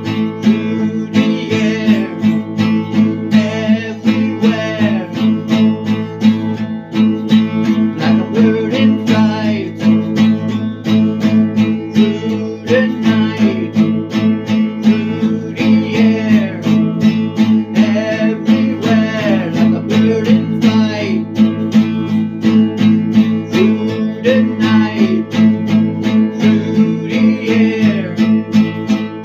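Music led by a strummed acoustic guitar, playing in a steady rhythm.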